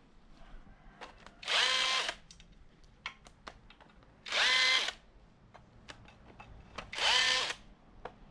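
Power drill spinning out the already-loosened bolts from the bottom end of a VQ37VHR engine block, in three short bursts of about half a second each, the motor pitch rising as it spins up. Light clicks and clatter of bolts and tool in between.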